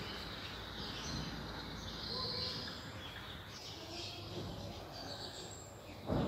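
Outdoor street ambience, a steady background noise with scattered faint bird chirps. A short, loud thump comes near the end.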